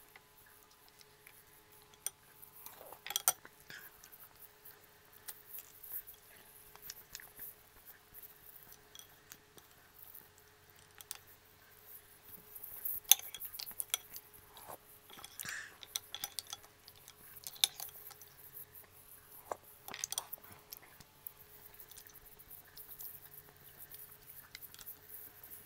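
Mussel shells clicking together and a metal spoon clinking against a ceramic bowl as mussels are picked out and eaten, in scattered sharp clicks over a faint steady hum.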